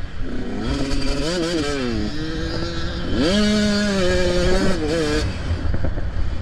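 85cc two-stroke motocross bike engine revving hard, its pitch rising and falling several times as the throttle opens and closes, with a sharp climb about three seconds in. A rough low rumble of wind runs underneath.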